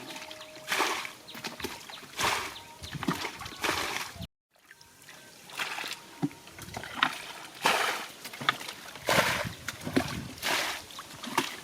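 Shallow rice-field water splashing and sloshing as someone wades and gropes through it by hand. There is a splash roughly once a second, with a short break in the sound a little over four seconds in.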